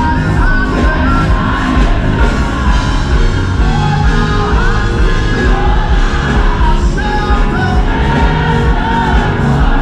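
Large children's gospel choir singing with a live band, loud and continuous.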